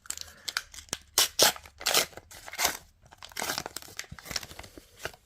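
A trading card pack's wrapper being torn open and crinkled by hand, in a run of irregular rustles and tears.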